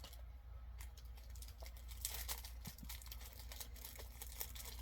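Packaging crinkling and tearing as pins are unwrapped by hand, a string of small rustles and clicks that is busiest about two seconds in.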